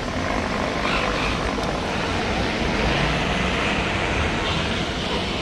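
Steady low engine rumble mixed with street noise.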